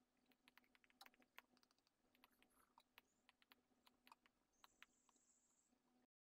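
Very faint, irregular taps of an Apple Pencil tip on an iPad's glass screen, over a faint steady hum. The sound cuts off suddenly near the end.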